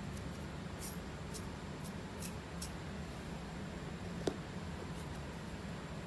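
Fine-tooth comb scraping flakes off the scalp along a hair part: several short, scratchy strokes in the first three seconds, then a single sharp click a little past the middle, over a steady low hum.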